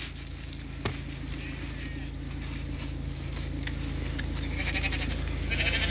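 A few sheep bleating among a crowding flock, over the steady low hum of an idling vehicle engine that grows gradually louder.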